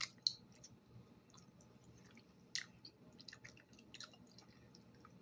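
Faint chewing of rambutan flesh with scattered small wet mouth clicks, a few sharper ones at the very start and about two and a half seconds in.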